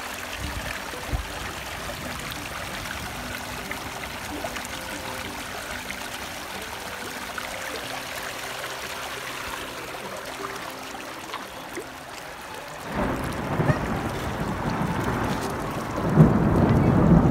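Water rushing in a wadi stream, a steady noise that grows much louder about thirteen seconds in.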